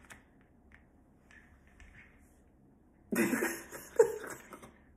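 A woman laughs briefly, a breathy chuckle about three seconds in, after a few seconds of near quiet.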